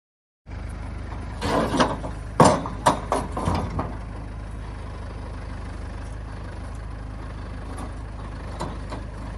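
Truck-mounted hydraulic crane's engine running steadily with a low hum, while it holds the steel drilling rig. About one and a half seconds in comes a quick series of loud, sharp knocks lasting about two seconds.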